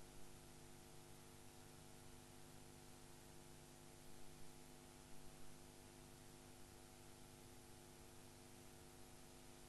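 Near silence: a faint steady hiss with a low electrical hum underneath, unchanging throughout.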